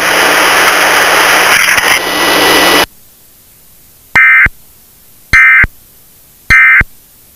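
Loud static hiss that cuts off abruptly about three seconds in. It is followed by three short, identical warbling data bursts of the Emergency Alert System end-of-message tones, each about a third of a second long and a little over a second apart, which mark the end of the test.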